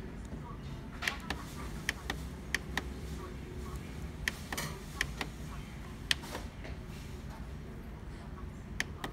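Control-panel buttons on an HP Laser MFP printer clicking as they are pressed one at a time to scroll through the setup menu, about a dozen short irregular clicks over a steady low hum.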